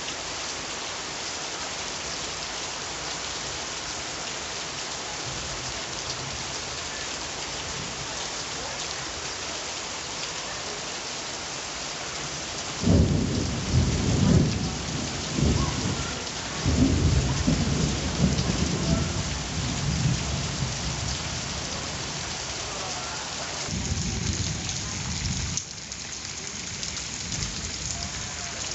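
Steady rain hiss, with a roll of thunder that breaks in suddenly about halfway through and rumbles in waves for several seconds, the loudest sound here, then a shorter rumble near the end.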